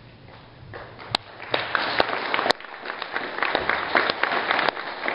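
Audience applause from a group of people clapping by hand, starting about a second in and quickly building to a full, steady round. A few sharp, louder claps stand out from close by.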